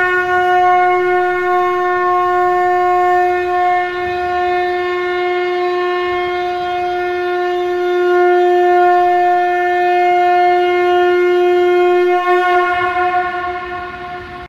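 Shankha (conch shell trumpet) blown in one long, steady note with many overtones, held for about twelve seconds, then wavering and fading near the end as the next blast begins.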